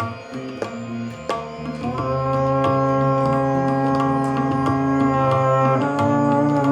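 Live jazz ensemble playing: scattered drum and percussion hits, then from about two seconds in a long held note over the percussion, moving to a new pitch near the end.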